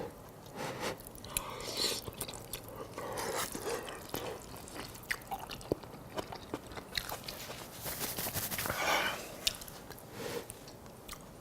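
Close-up mouth sounds of a person eating spaghetti with ground beef sauce: wet chewing and slurping with scattered small clicks, and a short breathy burst about nine seconds in.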